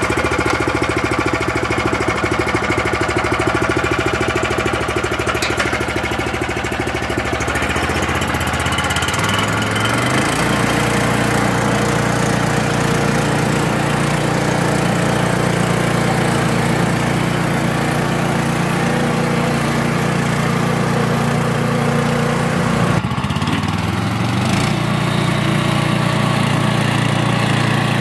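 Small petrol engine of a Güde tracked dumper (motor wheelbarrow) running steadily just after being pull-started with the choke closed. Its speed rises about a third of the way in, dips briefly near the end and picks up again.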